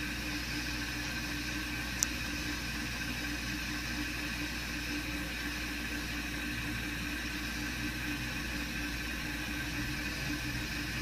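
Steady hum and hiss of a running motor, unchanging throughout, with one sharp click about two seconds in.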